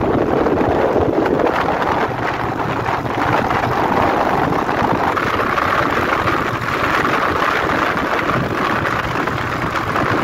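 Wind rushing over the microphone of a motorcycle riding at speed, with the motorcycle's engine running steadily underneath.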